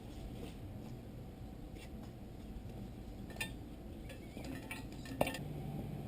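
A few light metallic clinks and taps of metal parts being handled, the sharpest about five seconds in.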